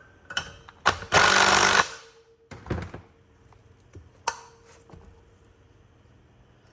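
A brief burst of an impact gun, a bit under a second long, running down the bolt of a valve spring compressor to push a dual valve spring further down. It is followed by a few sharp metal clicks and knocks from the tool and head.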